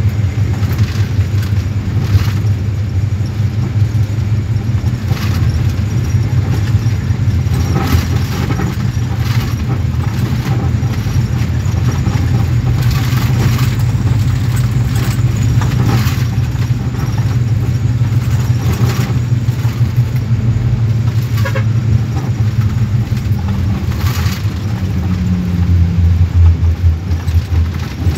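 Bus engine and road noise heard from inside the moving bus: a steady low rumble with scattered rattles and knocks. Near the end the rumble grows louder and pulses as the engine works harder.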